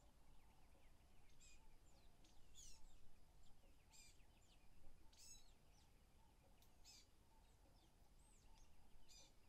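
Near silence with faint, high bird chirps recurring every second or so, over a low room hum.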